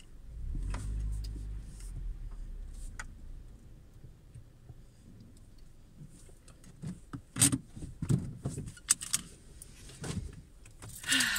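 Low rumble of a Hyundai i20 during the first couple of seconds, then scattered clicks and knocks from the controls, ending with a loud jangle of car keys at the ignition.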